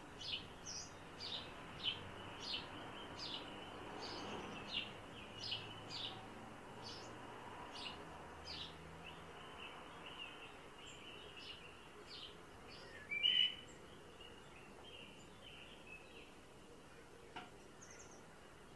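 A songbird giving short, sharp, high calls over and over, about one and a half a second, thinning out after about twelve seconds, over a faint steady high hum. One louder, lower call comes about thirteen seconds in.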